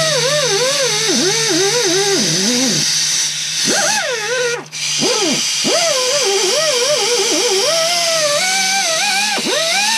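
Air die grinder with a sanding roll grinding cast iron while chamfering and deburring the oil galley holes of a Gen 3 Hemi engine block. The air-motor whine and exhaust hiss keep rising and falling in pitch as the roll loads against the metal. It stops for a moment about five seconds in, then starts again.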